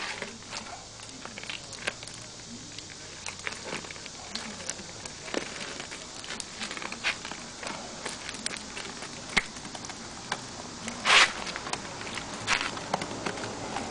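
Scattered clicks, knocks and crackles of an old tire being worked loose from a rusted Honda Z50 steel rim, with one louder, brief rasp about eleven seconds in.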